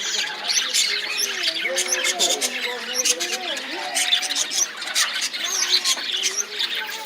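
A group of pet birds squawking and chirping continuously in rapid, overlapping harsh calls, with lower wavering calls running beneath them.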